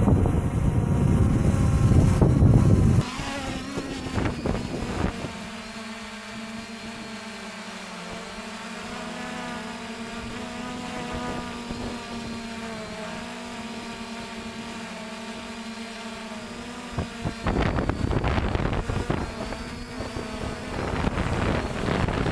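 Wind buffeting the microphone for the first few seconds, then the steady hum of a 3DR IRIS+ quadcopter's four motors and propellers, its pitch wavering slightly, heard from the drone's onboard camera. Loud wind noise returns for a few seconds near the end.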